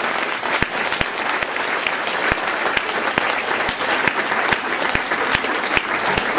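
Audience applause: many people clapping steadily, with sharp single claps standing out close by.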